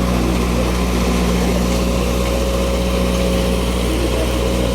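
An engine running at a steady, unchanging speed, like idling.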